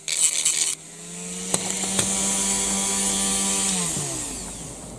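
Dremel rotary tool on a flexible shaft with a grinding stone: a brief burst of grinding on plastic, then the tool running freely with a steady whine. About four seconds in it is switched off and winds down, its pitch falling.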